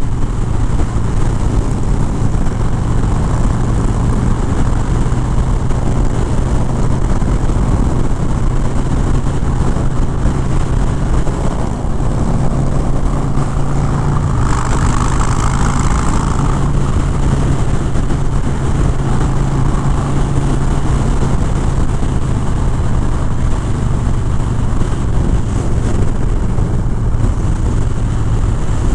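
Harley-Davidson Fat Bob 114's V-twin engine running steadily at freeway cruising speed under heavy wind and road noise, with a louder rush for about two seconds midway through.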